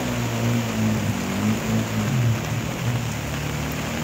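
Steady hiss of heavy rain and rushing water, with a vehicle engine running underneath, its low hum wavering slightly in pitch.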